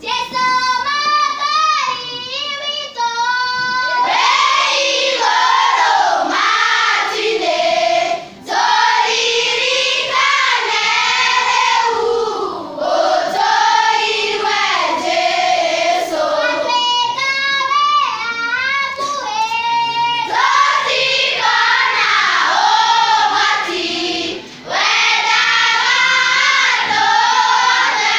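A children's choir singing a worship song together, with two short breaths in the singing, about eight seconds in and again near the end.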